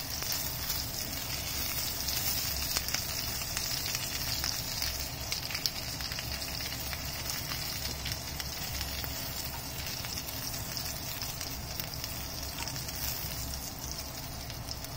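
Oil sizzling and crackling steadily as pieces of meat pan-fry in a nonstick pan, with a few sharper pops.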